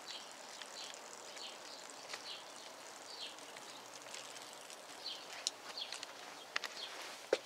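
A small bird chirping repeatedly, short high chirps over faint outdoor background noise. A few sharp clicks come in the last couple of seconds, the loudest a knock just before the end.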